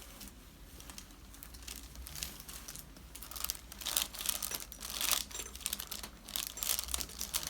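Irregular soft crinkling and rustling from movement on a chiropractic treatment table, sparse at first and busier after about three seconds.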